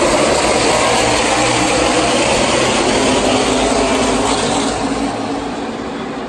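A pack of NASCAR Xfinity Series stock cars racing past, their V8 engines making a loud, dense, steady roar that gets somewhat quieter about five seconds in.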